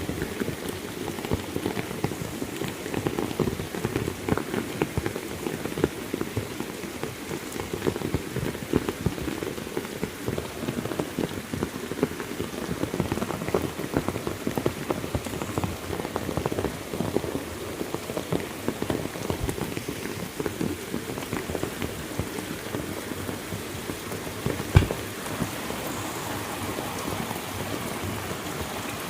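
Heavy rain falling: a dense, steady patter of drops. A single sharp knock stands out about 25 seconds in.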